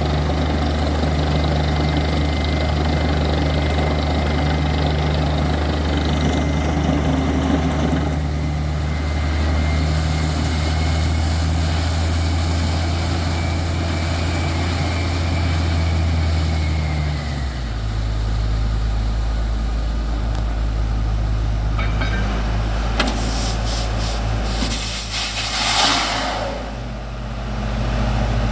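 Heavy engine of a borewell drilling rig running steadily under load, its note stepping down to a lower pitch about two-thirds of the way through. Near the end a few sharp knocks and a brief rush of noise sound over the engine.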